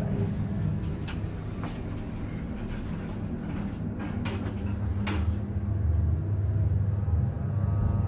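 Passenger elevator: a few light clicks, then the doors sliding shut with knocks about four and five seconds in. A low steady hum grows louder as the car starts moving up.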